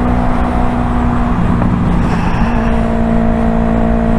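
Yamaha R3's 321 cc parallel-twin engine running through an M4 Street Slayer exhaust while the bike is ridden, with wind rushing over the microphone. The engine note dips briefly about a second and a half in, then holds steady again.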